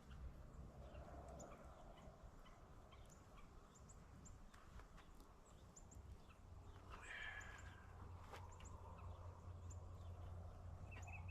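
Faint bird calls: short high chirps repeat throughout, a brief louder call comes about seven seconds in, and a quick trill of about seven notes comes near the end. A low steady hum comes in about halfway.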